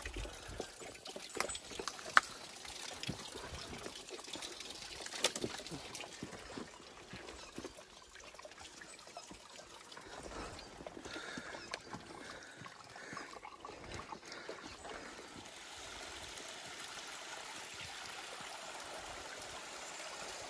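A small mountain stream trickling over rocks, with scattered footsteps and knocks on loose stones in the first half; the loudest is a sharp knock about two seconds in. The water becomes louder and steadier in the last few seconds.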